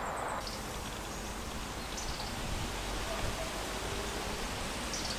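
Steady outdoor background hiss with a few faint high chirps, about two seconds in and again near the end.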